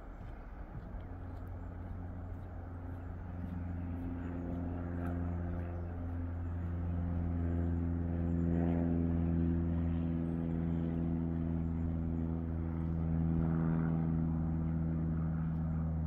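Class 50 and Class 33 diesel locomotives, an English Electric 16-cylinder and a Sulzer 8-cylinder engine, working a train. Their steady deep drone grows louder over the first several seconds as the train approaches, then holds.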